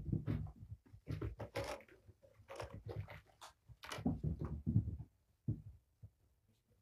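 Kittens playing chase and pounce on a carpeted floor and cat tree: irregular soft thumps and scuffles of running and landing paws, with a few sharper clicks. The activity dies down about five and a half seconds in.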